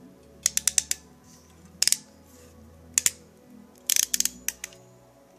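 Ratcheting crimp tool clicking as it crimps a fiber-optic connector onto the cable, in several short runs of sharp clicks: about five quick clicks near the start, a pair about two seconds in, one about three seconds in, and another run near the end.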